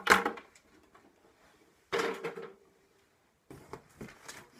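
Wooden beehive parts being handled and set down. A sharp knock comes right at the start, a second knock with a brief ringing tone comes about two seconds in, and light tapping and scraping follow near the end as hands reach into the cardboard box.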